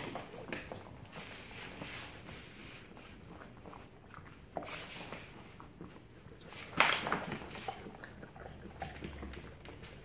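Mother dog licking her newborn puppy, with wet licking sounds and the rustle of the bedding sheets under them. The sounds come in irregular short bursts, the loudest a sharp rustle about two thirds of the way through.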